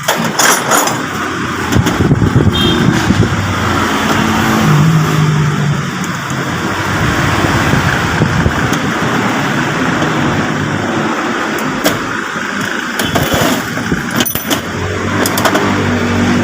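A motor vehicle engine running, its low pitch wandering up and down, with a few sharp clicks scattered through.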